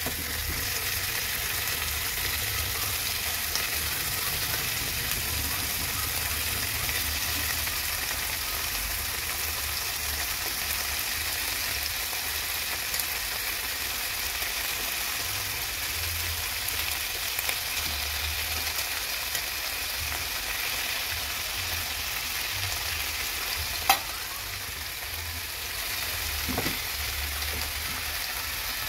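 Raw chicken pieces sizzling steadily in oil in a nonstick pan, among sautéed garlic, onion, tomato and bell pepper. A single sharp tap stands out about two-thirds of the way through.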